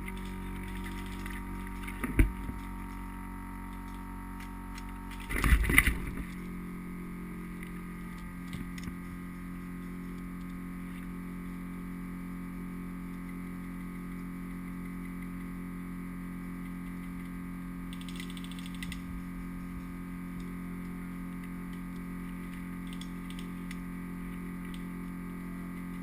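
Small anti-fog goggle fan running with a steady hum, muffled inside a waterproof camera case. A sharp knock comes about two seconds in, and a louder cluster of knocks follows between five and six seconds in.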